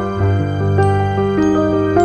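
Instrumental background music: a gentle melody of held notes.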